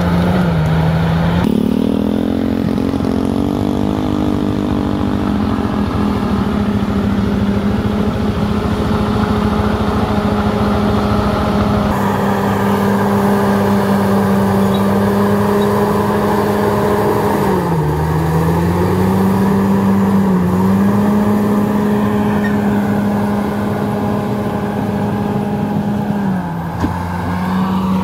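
Bulldozer's diesel engine running steadily under load, its pitch sagging briefly a few times as the engine lugs and then recovering.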